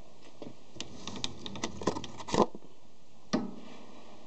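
Light, irregular clicks and taps from hands handling the parts of a small metal lathe: a quick run of them about a second to two and a half seconds in, then one sharper knock near the end.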